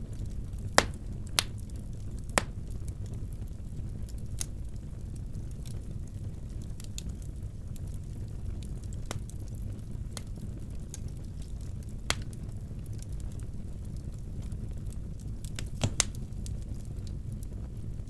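Wood fire burning in a fireplace: a steady low rumble with scattered sharp cracks and pops, the loudest a few at the start, one around the middle and a pair near the end.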